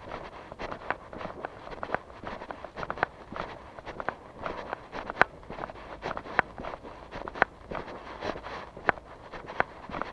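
Footsteps of a person walking at a steady pace, sharp even steps about two a second.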